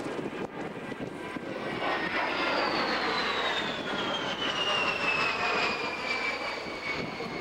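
Lockheed S-3 Viking's twin turbofan engines whining as it flies past overhead. The rushing roar swells about two seconds in, and a high whine glides steadily down in pitch as the jet passes.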